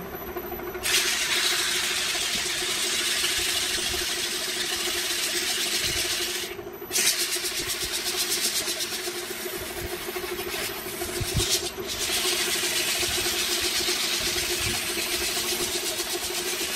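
Electric wood lathe running with a steady hum while sandpaper is pressed by hand against the spinning turned workpiece. The loud hiss of sanding starts about a second in and breaks off briefly twice, once near the middle and once about two-thirds through.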